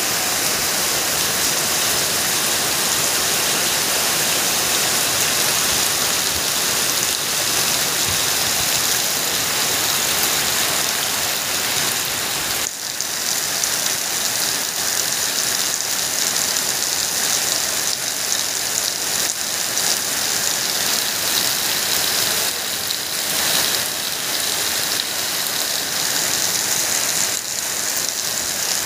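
Heavy rain pouring steadily onto a waterlogged paved yard: a dense, even hiss.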